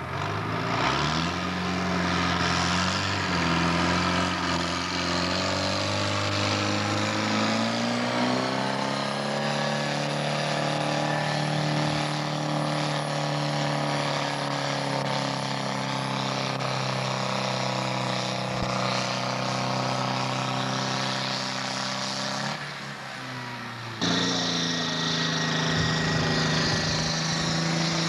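Modified farm tractor engine running at full throttle under heavy load while pulling a weighted sled, holding a steady pitch with slow dips and rises. About three-quarters of the way through, the sound drops briefly, then a John Deere tractor's engine comes in abruptly, also at full throttle.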